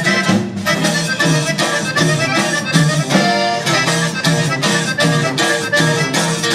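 Live band playing an instrumental passage: accordion melody over a steady, evenly repeating bass beat.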